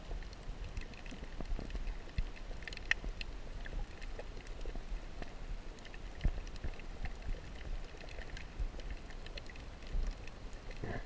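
Muffled underwater ambience picked up by a camera held underwater: a steady low rumble with scattered faint clicks and crackles.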